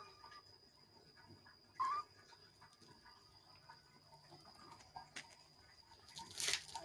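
A kitten gives one short meow about two seconds in, with a brief rustling scuffle near the end.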